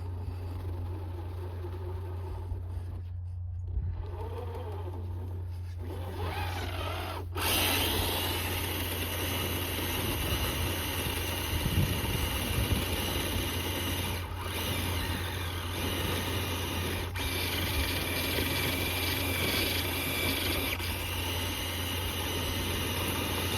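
Brushless electric motor and drivetrain of an RC crawler whining as it drives and climbs, with gliding pitch changes early on. It gets suddenly louder about seven seconds in as the throttle is pushed and stays loud until the end, over a steady low hum.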